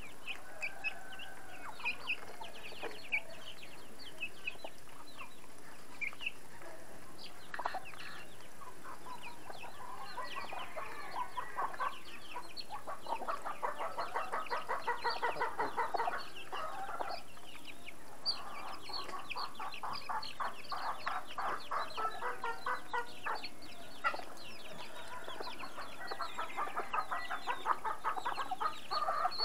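Chickens feeding on scattered grain: chicks peeping in short high chirps while adult hens and a rooster cluck, with three stretches of fast, rapidly repeated clucking.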